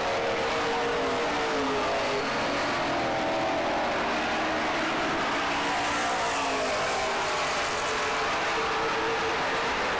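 A pack of Mid American stock cars racing around an oval, several engines under power at once, their pitches rising and falling as they pass and lift through the turns.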